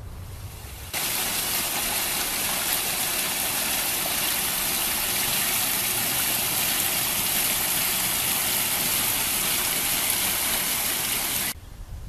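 Water from a garden fountain and small cascade splashing into an ornamental pond: a steady rush of water that starts suddenly about a second in and stops suddenly near the end.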